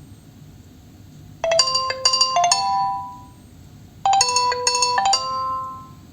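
Nokia 3.4 smartphone playing one of its preset ringtones: a short, bright, chiming phrase of a few notes, heard twice about two and a half seconds apart.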